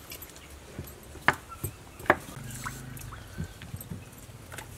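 A few sharp, scattered knife clicks and taps on a wooden cutting board as green vegetables are cut by hand, with faint high chirps in the background.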